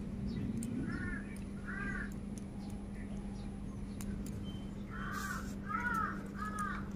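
Crows cawing: two caws about a second apart near the start, then a quicker run of three or four near the end, over a steady low hum.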